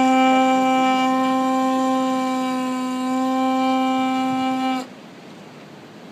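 Conch shell trumpet (Hawaiian pū) blown in one long, steady note that stops abruptly about five seconds in. This is the traditional call that opens a Hawaiian ceremony.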